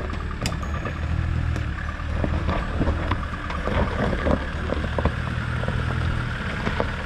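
Land Rover Defender four-wheel drive crawling up a steep rocky climb, its engine running steadily at low revs, with rocks crunching and knocking under the tyres throughout.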